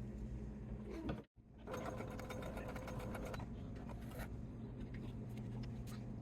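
Sewing machine running and stitching, a steady hum with rapid needle ticking. It drops out briefly about a second in, then resumes.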